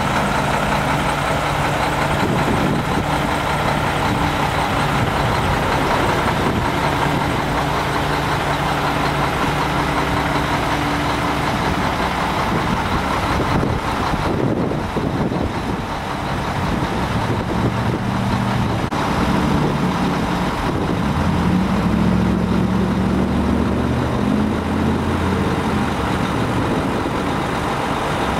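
Heavy diesel truck engines idling steadily. About three-quarters of the way through, a deeper engine note comes up stronger.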